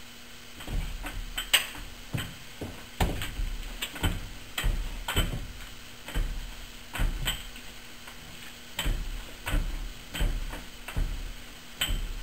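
A lathe carriage pushed back and forth by hand, driving a boring-bar cutter through the teeth of a steel gear blank: a run of sharp clicks and low knocks, roughly three every two seconds, as the tool scrapes steel on each stroke and the carriage bumps at the ends of its travel.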